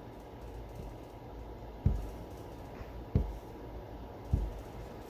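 Three dull thumps, a second or so apart, over faint room noise.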